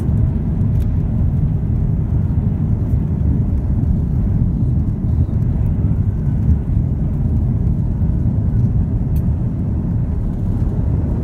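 Steady, loud low rumble of airliner cabin noise: jet engines and airflow heard from inside the passenger cabin.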